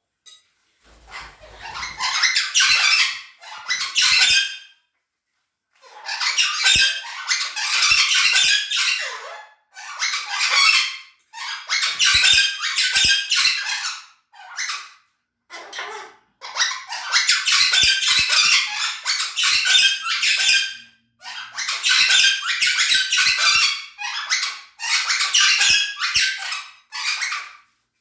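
Cuban amazon parrots squawking and screeching loudly in repeated bursts, each lasting one to a few seconds, with short pauses between.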